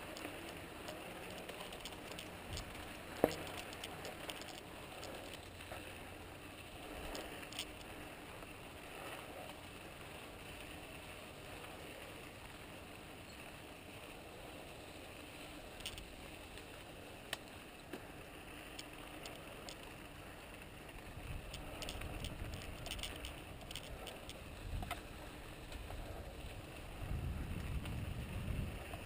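Santa Cruz Tallboy LT mountain bike rolling along a dirt trail: steady tyre noise on the packed dirt with scattered clicks and rattles from the bike, and one sharp knock about three seconds in. A low rumble builds over the last several seconds.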